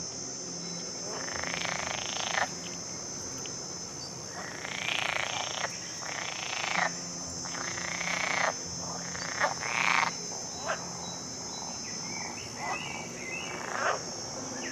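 A steady, high-pitched chorus of insects, broken by about eight short noisy bursts of a second or less each, with a few brief chirps near the end.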